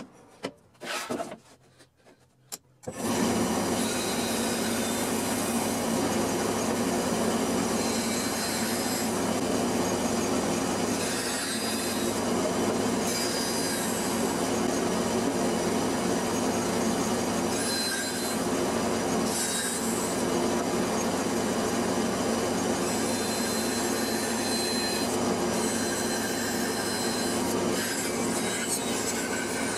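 Bandsaw running steadily while cutting through plywood. It starts abruptly about three seconds in, after a few light knocks.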